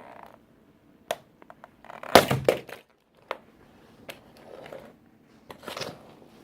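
A toy tractor being crushed under a work boot: a sharp crack about a second in, a loud crunching stomp around two seconds in, then a few snapping clicks and another crunch near the end.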